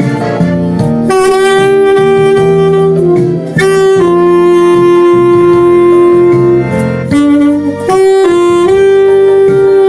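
Alto saxophone playing a slow melody with long held notes.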